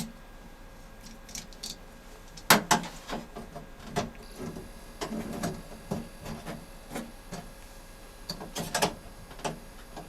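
Toilet-tank parts being handled and fitted: a string of irregular sharp clicks and knocks, the loudest about two and a half seconds in and another cluster near the end.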